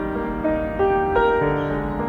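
Background piano music: a slow, gentle melody of single notes with sustained chords.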